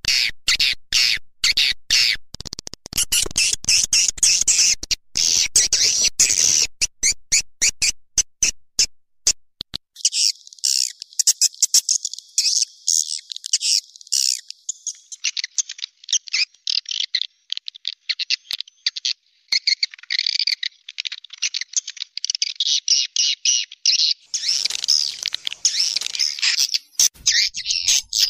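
Swiftlet lure-call recording: dense, high-pitched twittering chatter of edible-nest swiftlets. For about the first ten seconds it is a rapid run of sharp clicks mixed with the twitters; after that it becomes a continuous high twittering chatter.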